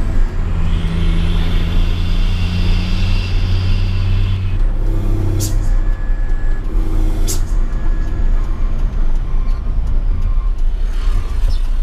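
Heavy diesel engine running with a steady low hum that eases about four and a half seconds in, and two short sharp sounds about two seconds apart.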